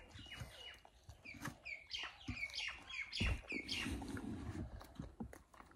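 Birds chirping in many short, quick calls, with a few sharp clicks and crunches from crisp puri being bitten and chewed.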